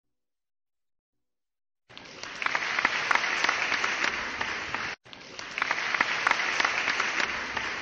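A crowd clapping, starting about two seconds in, cutting off abruptly about five seconds in and starting again at once.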